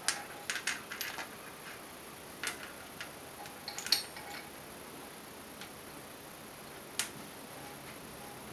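Light metallic clicks and clinks of tools and metal parts being handled while clamping a workpiece. A quick cluster comes right at the start, a few more about two and a half to four seconds in (the loudest near four seconds), and a single click about seven seconds in, over a faint steady background hum.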